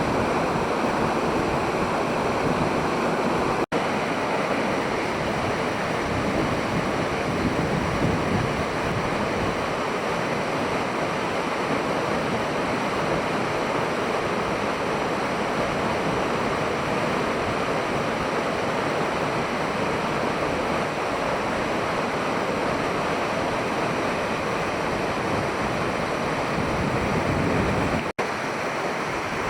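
Waterfall of the Amagoi Falls, a steady, loud rush of falling water, with two very brief dropouts, one near the start and one near the end.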